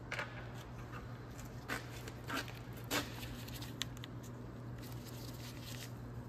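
Light metallic clicks and scrapes of small drum-brake parts being handled, about five of them spread through the first four seconds, over a steady low hum.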